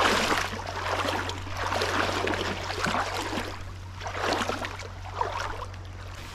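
Wading steps through shallow river water, the water sloshing and splashing with each stride, about five strides at uneven spacing over a steady low hum. The sloshing grows quieter near the end.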